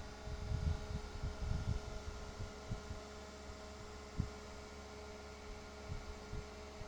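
Steady electrical hum with soft, irregular low thumps, and one sharper knock about four seconds in.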